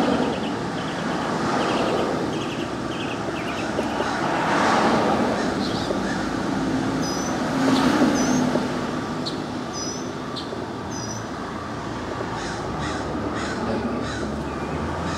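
Street ambience of passing cars swelling and fading every few seconds, with birds calling over it: a quick series of short calls over the first few seconds, then higher chirps in the middle.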